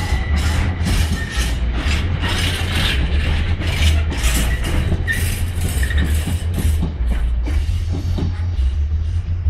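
Container freight wagons rolling past at close range, their wheelsets clattering over rail joints in a regular clickety-clack, often in pairs, about two a second, over a steady low rumble. The clatter thins out about seven seconds in as the last wagons clear.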